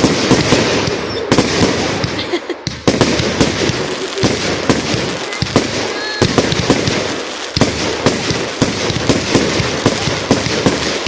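Fireworks display going off: a rapid, continuous string of bangs and crackles, many reports a second, with a brief lull about two and a half seconds in before it picks up again.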